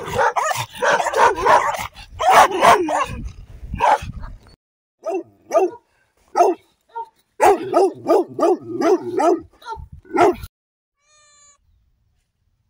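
Angry dogs barking and snarling: a dense, continuous fit of barking for the first four seconds or so, then separate barks and a quick run of barks that stop about ten seconds in.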